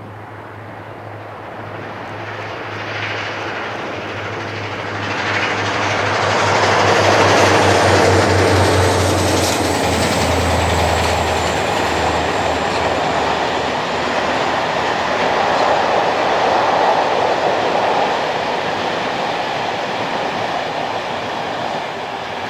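A diesel-hauled passenger train passing close by: the locomotive's diesel engine gives a pulsing low throb that grows as it approaches and goes by, then the coaches' wheels rumble and rattle along the rails. It builds to its loudest about a third of the way in and eases off only slowly as the long train rolls past.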